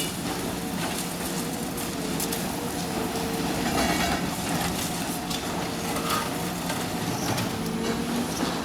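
Heavy demolition machinery running steadily with a low hum and a higher whine, with scattered knocks and clatter throughout.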